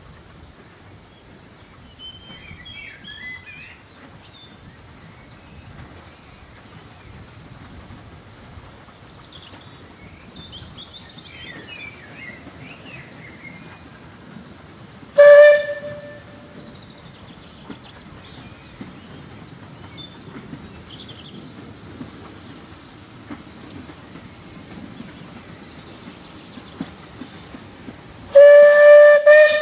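Steam whistle of No.6 'Blickling Hall', a 15-inch gauge steam locomotive, approaching in the distance: one short blast about halfway through and a longer blast near the end, each a single clear note. Birds chirp faintly earlier on.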